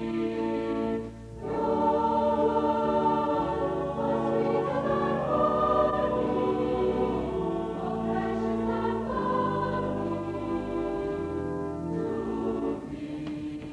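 Choir singing a slow song in sustained, changing chords, with a brief breath between phrases about a second in. The song dies away near the end.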